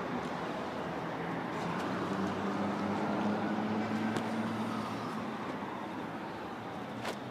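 Steady city traffic noise, with a vehicle engine growing louder and fading again about halfway through. A brief sharp click near the end.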